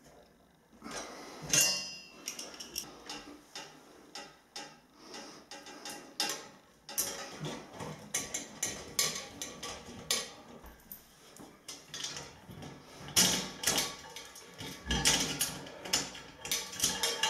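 Irregular clatter and knocks of steel trestle parts being handled and knocked against one another. There are louder knocks about a second and a half in and again near the end.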